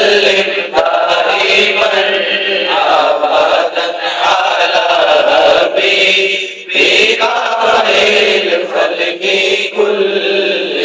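A man's voice singing an unaccompanied Islamic devotional song in long, drawn-out chanted phrases, amplified through a handheld microphone. There is a brief break for breath about two-thirds of the way through.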